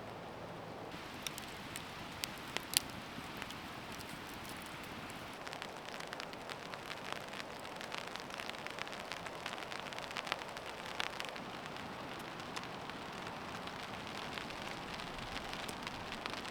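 Very gentle, light rain coming back: a steady soft hiss with scattered drops ticking, growing a little more frequent partway through.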